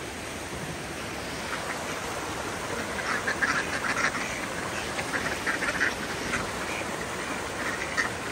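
Ducks quacking, many short calls overlapping, getting busier about three seconds in, as the birds crowd in to be fed.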